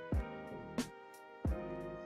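Background music with a steady beat: deep kick-drum thumps and sharp clap-like hits over sustained chords.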